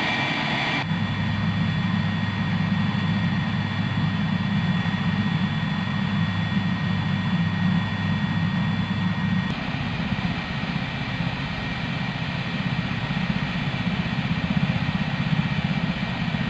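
AH-64 Apache helicopter's twin turboshaft engines running on the ground: a steady low rumble with a thin high whine over it. The whine drops out about nine and a half seconds in.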